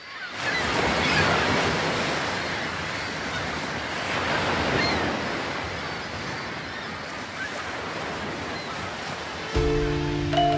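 Sea surf washing, a steady rush of waves that fades in at the start and swells and ebbs slowly. Near the end, mallet-percussion music like a marimba comes in over it.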